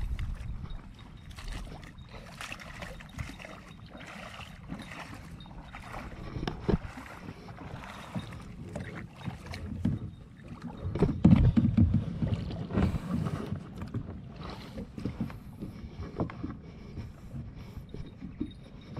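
Plastic sit-on-top kayak being launched and boarded in shallow water: water splashing and sloshing around the hull, with irregular knocks and paddle movements. A louder stretch of bumping and splashing comes about eleven seconds in.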